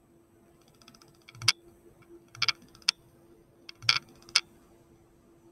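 About six short mouth clicks and lip smacks scattered over three seconds, starting about a second in, over a faint steady hum.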